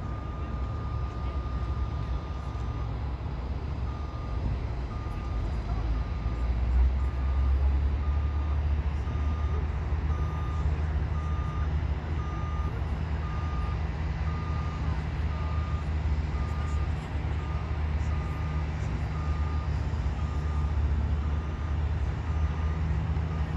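A vehicle's reversing alarm beeping, one tone held for the first few seconds and then regular beeps a little more than once a second, over a steady low rumble.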